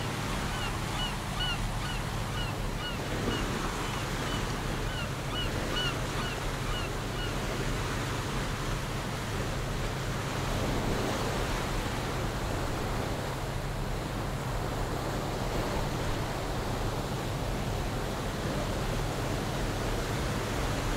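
Water rushing and churning in a tour boat's wake, with wind and a steady low engine hum. A run of short high chirps repeats about twice a second through the first several seconds.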